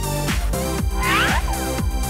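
Electronic background music with a steady beat and a short sliding synth figure about a second in.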